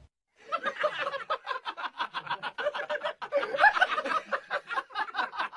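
A person laughing in rapid, repeated bursts that continue almost without a break after a brief pause at the start.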